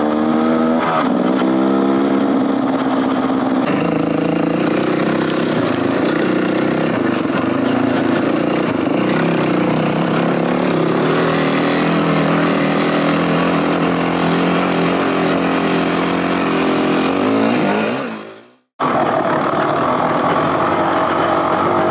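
Dirt bike engine running under throttle on a trail ride, its pitch rising and falling as the rider opens and closes the throttle. About 18 seconds in the sound fades out to silence for a moment, then another dirt bike's engine picks up.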